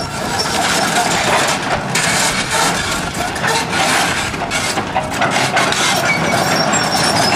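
A wood-frame house being torn down by construction equipment: timber cracking and splintering in a constant, crackling clatter of breaking boards and debris.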